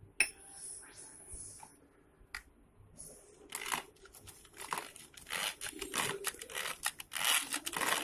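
A hand whisk stirring brown sugar into beaten egg in a plastic bowl. There is a click and a brief rustle at the start, then quick repeated scraping strokes begin about three and a half seconds in and grow louder.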